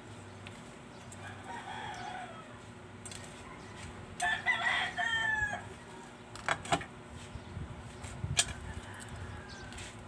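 A rooster crows once in the background about four seconds in, after a fainter call a little earlier. A few sharp clicks follow as tweezers handle the phone's small parts.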